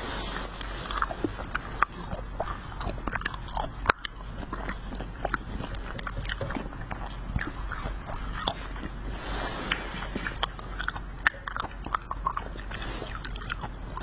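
Close-miked chewing and biting of wax-bottle candy: a steady run of irregular small crackles, clicks and crunches as the wax is bitten and worked between the teeth.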